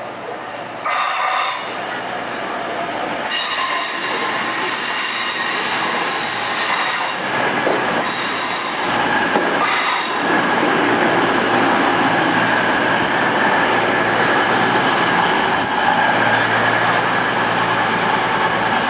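CrossCountry Voyager diesel multiple unit pulling into a station platform, with a high-pitched ringing squeal from its wheels and brakes as it slows, loudest for several seconds in the first half. After that the squeal gives way to a steadier run with a held whine over the low hum of the train.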